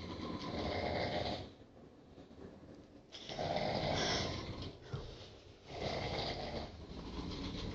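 Two people snoring in their sleep: three loud snores about two to three seconds apart, each lasting over a second, with quieter breathing between.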